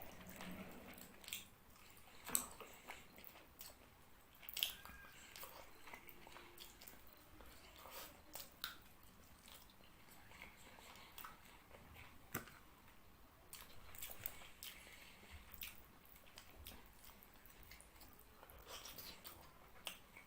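A person chewing a mouthful of fish curry and rice close to the microphone: soft, wet mouth clicks and smacks throughout, with a few sharper smacks about two, four and a half, and twelve seconds in.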